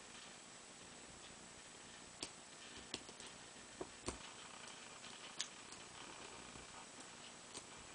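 Lock pick and tension wrench working the pins of a Mul-T-Lock 7x7 G55 padlock during single-pin picking: a handful of small, sharp clicks at uneven intervals over a faint hiss.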